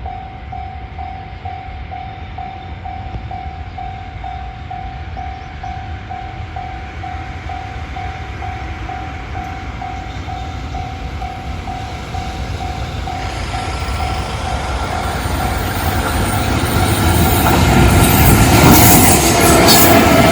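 Japanese level-crossing alarm (JR standard tone) ringing in an even repeating pulse, while an EF65 electric locomotive hauling a freight train approaches. The train noise builds steadily over the last several seconds and grows loud as it reaches the crossing, drowning the alarm.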